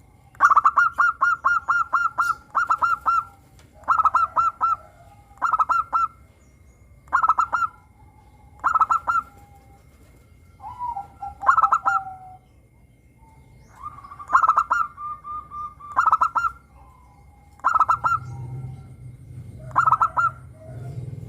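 Zebra dove (perkutut) cooing in about a dozen short phrases, one every second or two. Each phrase is a quick run of clear staccato notes.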